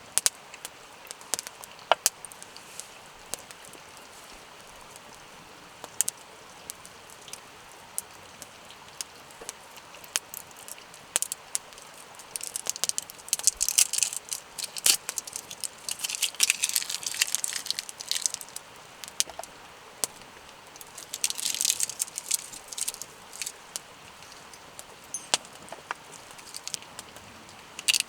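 Wood campfire crackling: scattered sharp pops throughout, with a long run of dense crackling in the middle and a shorter one later.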